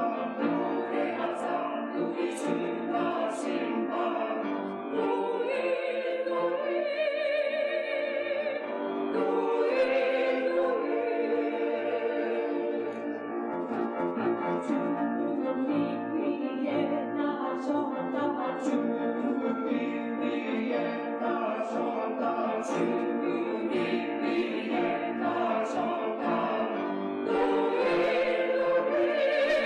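Church choir singing a choral anthem, with sustained notes and vibrato, swelling louder near the end.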